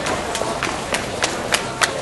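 Footsteps of hard-soled shoes striking a station's paved floor, an even walking pace of about three steps a second, over a background murmur of commuters.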